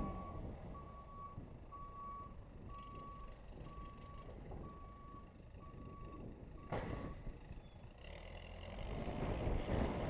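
Case 580C backhoe reversing, its back-up alarm beeping about once a second over a low engine hum. The beeping stops around seven seconds in, just after a single clunk, and the engine then gets louder as the machine pulls away.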